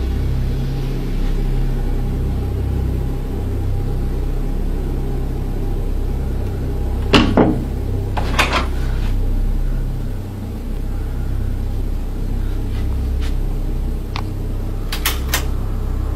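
A steady low hum, with a few sharp clicks and knocks about seven and eight and a half seconds in and several more near the end.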